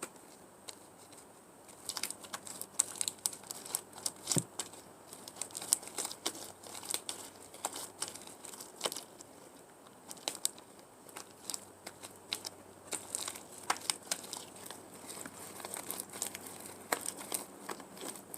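Homemade glue-and-laundry-detergent slime being kneaded and worked in the hands: irregular sticky crackles and pops.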